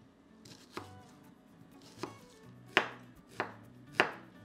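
Kitchen knife chopping onion finely: about five separate sharp chops at uneven intervals.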